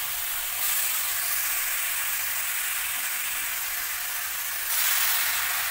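Grated carrots sizzling in hot melted ghee in a kadhai as they start to fry, the first roasting stage of gajar ka halwa. A steady hiss that gets louder about half a second in and again near the end.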